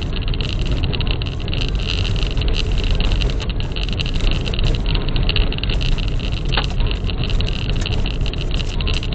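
Vehicle driving off-road: a steady, loud rumble of engine and tyres over rough ground, with a single brief knock about six and a half seconds in.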